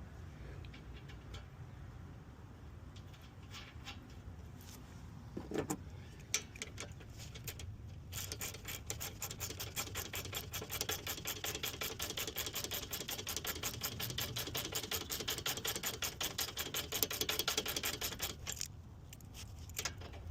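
A few scattered knocks of tool handling, then about eight seconds in a hand ratchet wrench starts clicking rapidly and evenly for some ten seconds before stopping near the end, as parts of the A/C system are tightened.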